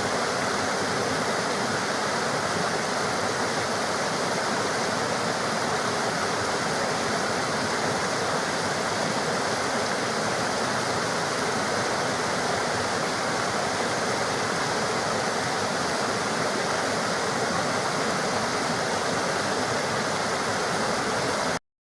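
Steady rushing water with no change in level, cutting off abruptly near the end.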